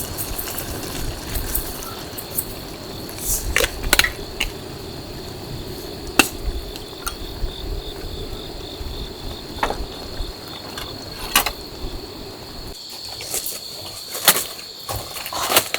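Crickets trilling steadily on one high note, with scattered sharp clicks and knocks of utensils. A low rushing noise underneath stops about thirteen seconds in.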